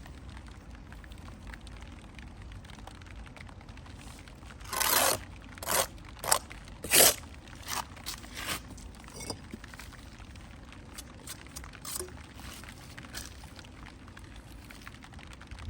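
Masonry hand-tool work on brick: a short gritty scrape about five seconds in, then a run of sharp taps and clinks over the next few seconds, the loudest near the middle, and a few faint ticks after.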